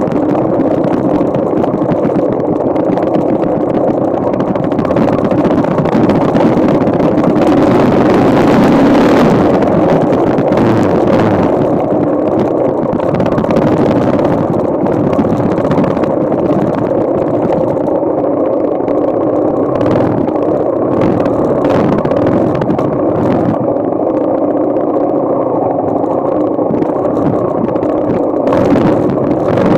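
Yamaha XT single-cylinder four-stroke motorcycle engine running at a steady speed while riding, with a few brief flares of noise in the second half.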